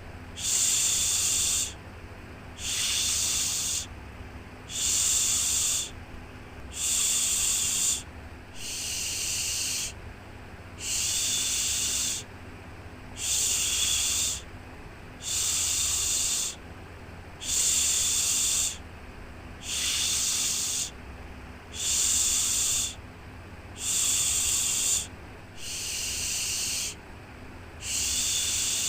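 A repeated 'shhh' shushing sound for soothing a baby: a soft hiss of about a second, then a pause, about once every two seconds in an even rhythm, over a faint steady low hum.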